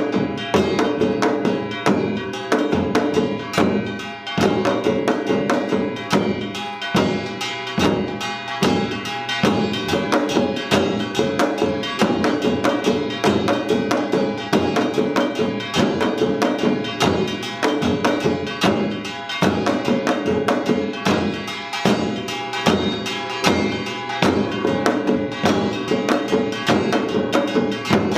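Korean samul nori ensemble playing a Yeongnam-style rhythm: hourglass janggu drums and barrel buk drums beaten in dense, rapid strokes over ringing, clanging metal gongs.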